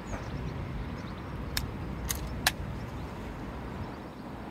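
Air rifle's cocking lever cycled to chamber the next pellet: three sharp metallic clicks over about a second, the last the loudest, over a steady low rumble.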